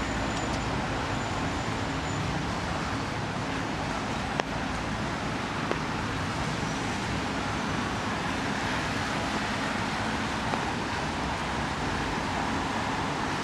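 Steady city street traffic noise from passing road vehicles, with a single sharp click about four and a half seconds in.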